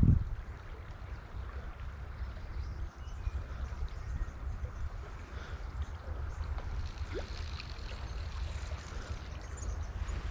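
Creek water running steadily with wind rumbling on the microphone, and a brief knock right at the start.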